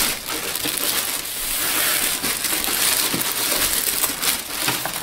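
Clear plastic bag crinkling and crackling continuously as it is pulled and bunched off a desktop document scanner.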